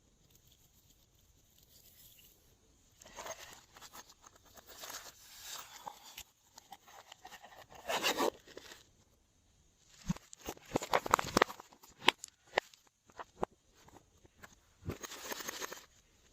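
Glossy slime being worked by hand, in irregular bursts of sticky crackling and squishing, with several sharp clicks and pops between about ten and thirteen seconds in.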